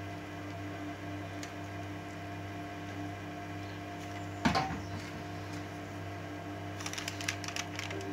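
Kitchen utensil sounds over a steady hum: about halfway through, a single sharp knock with a brief ring. Near the end comes a run of quick clinks and scrapes as a metal spoon scoops thick tomato sauce to spread on the layered aubergine.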